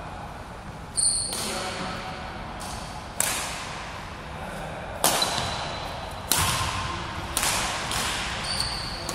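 Badminton rackets striking a shuttlecock in a rally: about six sharp cracks a second or two apart, each echoing in a large hall. Two short high squeaks, one about a second in and one near the end, fit sports shoes on the court floor.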